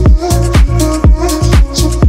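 Background electronic dance music with a steady, driving drum beat.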